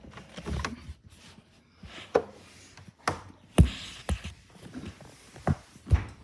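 A series of irregular knocks and thumps, about seven in six seconds, with faint rustling between them: objects being bumped and handled in a small, enclosed space.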